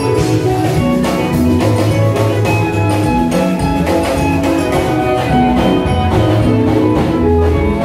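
Music with a steady drum beat and sustained melodic instrument lines, playing loudly throughout.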